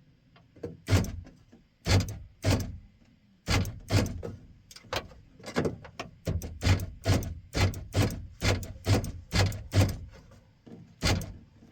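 Repeated sharp metal clunks from a 1997 Ford F-250 HD's replacement door latch being worked over and over. The clunks come in pairs at first, then in a quicker run of two or three a second in the second half.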